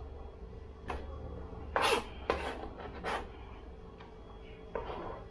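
Kitchen knife scraping chopped scallion and onion across a plastic cutting board and into a bowl: about five short scrapes, the loudest about two seconds in.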